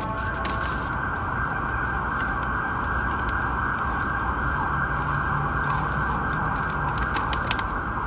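A siren sounding steadily. Paper bags give sharp crinkles now and then, a few of them close together near the end.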